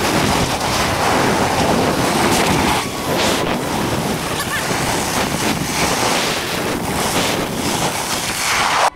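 Wind rushing over the microphone and a snowboard scraping over groomed snow during a downhill run, a steady loud rush that cuts off suddenly at the very end.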